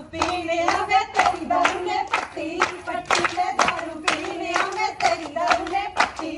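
Group of women clapping in a steady rhythm, about three claps a second, while singing together to keep time for giddha, the Punjabi women's folk dance.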